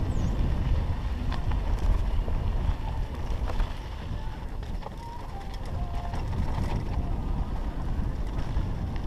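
Wind buffeting a GoPro Hero3's microphone as a Trek hardtail mountain bike rolls down a dry dirt singletrack, with scattered light clicks and rattles from the bike and the trail. The rush is strongest at first, eases briefly a few seconds in, then builds again.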